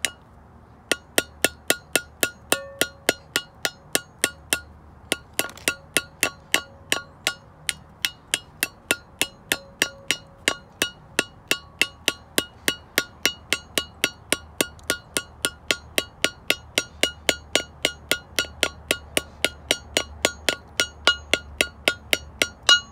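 Hammer tapping lightly and evenly on metal, about two to three taps a second, each with a short metallic ring: a new grease seal being driven into a Dexter trailer axle's brake drum hub by hand, without a press, until it sits flush.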